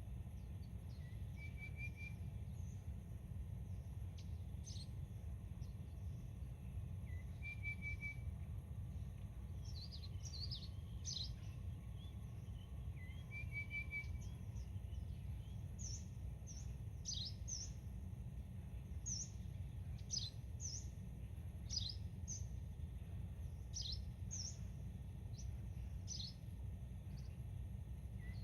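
Songbirds calling over a steady low rumble: one bird gives a short high trill about every six seconds, and from about ten seconds in another joins with many quick, high chirps that drop in pitch.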